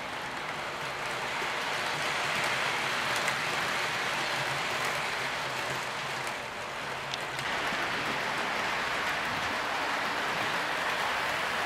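HO-scale model train running on the track: a steady rushing clatter of metal wheels on rails, dipping briefly a little past halfway, then back up as the C59 steam locomotive model comes along.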